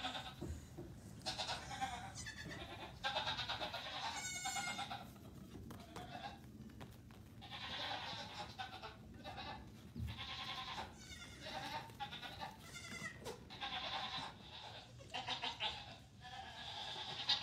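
A group of young goat kids bleating: many short calls one after another, some overlapping, with a few longer wavering ones.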